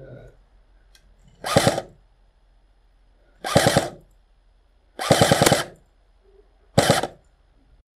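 Airsoft electric gun (AEG) firing four short full-auto bursts, each lasting about half a second or less, spaced a second or two apart.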